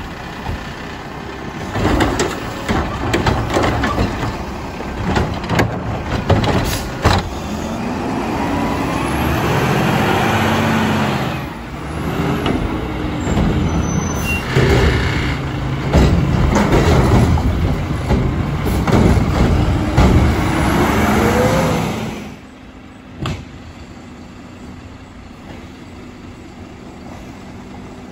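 Mack LR front-load garbage trucks working carts: the diesel engine revving up to drive the hydraulics, with a rising and falling whine, and repeated clanks and bangs as the arm grabs and dumps the carts. About 22 seconds in it drops to a quieter, steady engine rumble from a truck further off.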